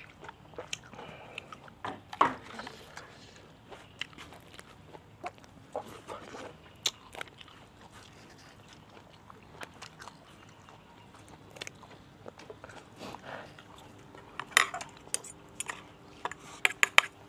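A person eating: chewing and crunching mouthfuls of pounded santol salad with fresh greens, with scattered short crunches and clicks and a quick run of crunches near the end.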